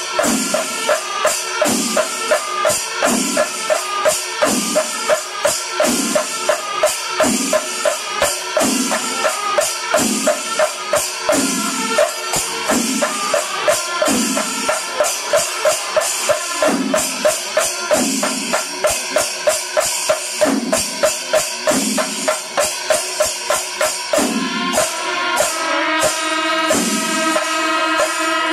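Kerala temple percussion ensemble (melam) playing a steady rhythm: chenda drums struck hard with clashing cymbals over them. Sustained pitched tones join near the end.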